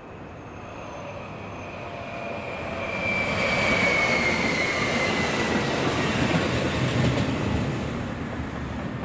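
JR Shikoku 7200 series two-car electric train (ex-JNR 121 series) passing close by. The rumble of wheels on rail swells, peaks for a few seconds and then eases, with a high whine that falls in pitch as the train goes by.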